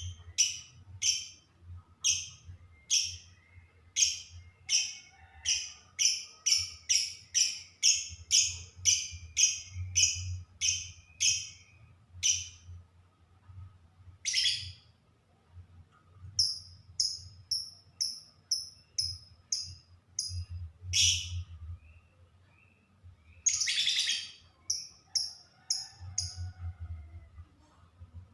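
Lovebirds chirping: a fast, even run of short, shrill chirps, about two a second, for the first twelve seconds or so, then a few single louder calls and short runs of higher, thinner chirps.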